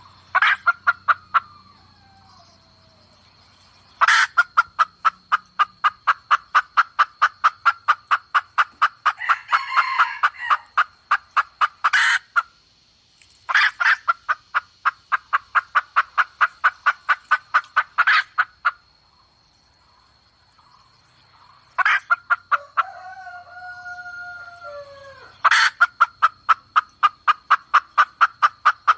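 Red junglefowl hen giving rapid runs of clucks, about five a second, in long bursts with short pauses between them. This is the hen call used as bait to lure wild roosters. Some brief gliding whistled notes come in the pause near the end.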